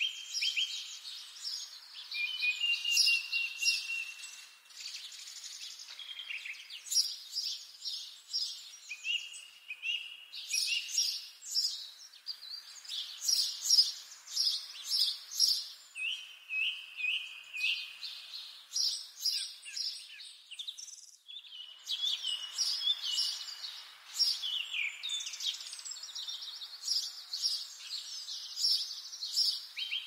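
Several songbirds singing together in a forest morning chorus, with quick runs of high repeated chirps and trills overlapping one another over a faint steady hiss. The song thins out for a moment about two-thirds of the way through.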